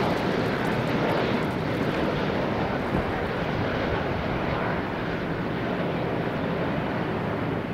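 Airbus A330 jet on final approach, its engine noise a steady rumble that slowly fades as it passes by and flies on over the runway.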